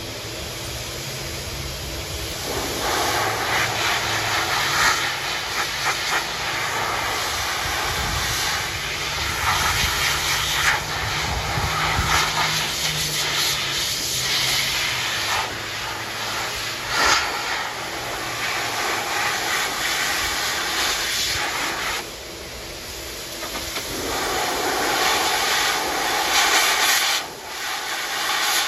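K9 II two-motor high-velocity dog dryer running with both motors through its nozzle: a steady rushing hiss of forced air. It swells about two and a half seconds in, dips briefly about three-quarters of the way through, then comes back up.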